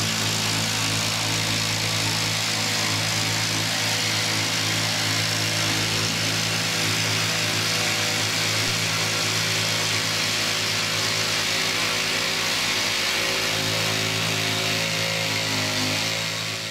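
Jigsaw running steadily as it saws through a kitchen worktop, a constant motor hum under a dense hiss of blade cutting. It winds down and stops near the end.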